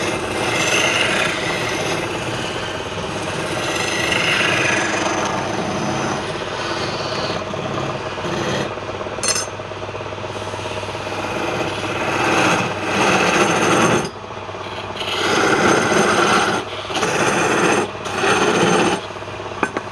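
Wood lathe running while a tool works the spinning wood, a continuous scraping over a steady motor hum; in the last several seconds the scraping comes in repeated passes about a second long.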